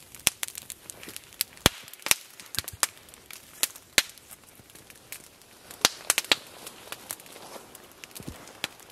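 Small wood campfire crackling, with sharp irregular pops from the burning sticks, some louder snaps standing out.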